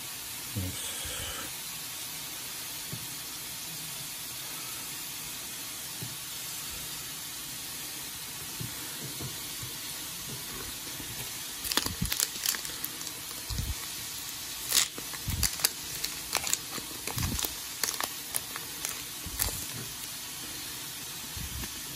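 Steady hiss, then from about twelve seconds in a run of sharp crackles and clicks: a foil Pokémon booster pack being torn open and its cards handled.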